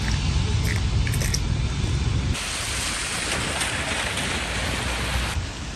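Outdoor ambience with wind rumbling on the microphone, cut about two seconds in to a steady, even hiss that stops shortly before the end.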